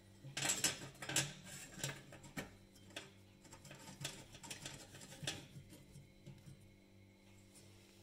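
Light metallic clicks and scrapes from a sheet-metal oven fan blade being fitted onto the motor shaft and its nut turned on by hand, thinning out after about five seconds.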